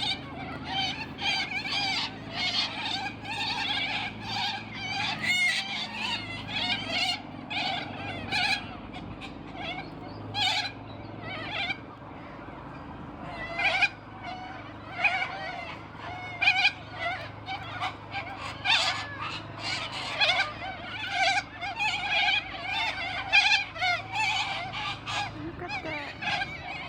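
A flock of white cockatoos screeching: many harsh, rasping calls overlapping almost without pause, with a short lull about twelve seconds in.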